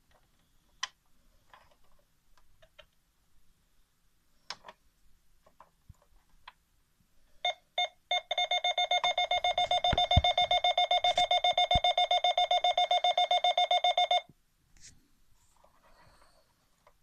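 Electronic sound unit of a 1979 Fisher-Price Alpha Probe toy spaceship, set off from its control-panel buttons. A few faint button clicks, then three short beeps, then a fast-pulsing electronic beep of about seven pulses a second that lasts around six seconds and cuts off suddenly.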